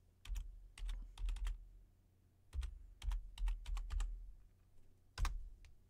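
Computer keyboard keys clicking as a password is typed: two quick runs of keystrokes, then one harder keystroke about five seconds in.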